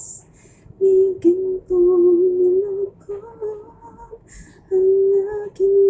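A woman humming the melody of a Tagalog worship song unaccompanied, in three held phrases with short breaks between them.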